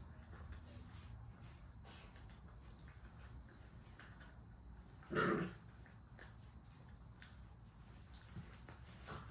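American bully puppies shifting on wood-shaving bedding with faint scattered rustles and clicks, and one short puppy cry about five seconds in.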